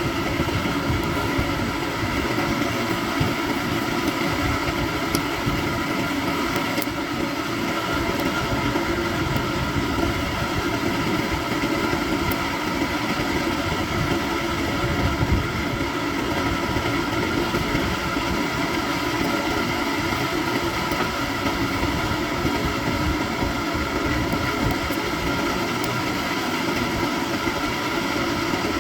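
An electric motor running steadily, a continuous hum with several fixed tones over a rushing noise, typical of a workshop machine such as a grinder.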